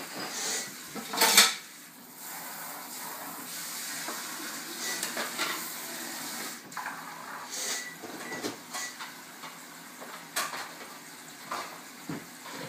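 Scattered clinks and knocks of small hard objects, one sharp loud knock about a second and a half in, over a steady hiss.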